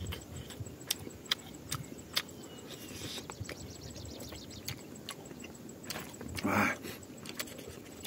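Close-up eating sounds of rice eaten by hand: open-mouthed chewing with a run of sharp, wet lip-smacking clicks. A louder, longer mouth sound comes about six and a half seconds in.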